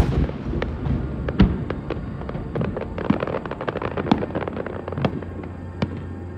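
Aerial firework shells bursting: a loud bang at the start and another about a second and a half in, then a dense run of sharp pops and crackles, with one more sharp report near the end.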